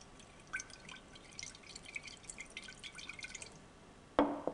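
Liquid sloshing in a glass conical flask as the reaction mixture is swirled after powdered calcium chloride is added, a quick patter of small drips and splashes. A single louder knock comes near the end.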